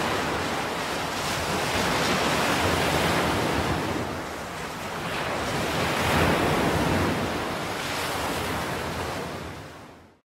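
Ocean surf washing in and out, swelling and ebbing a few times, then fading out near the end.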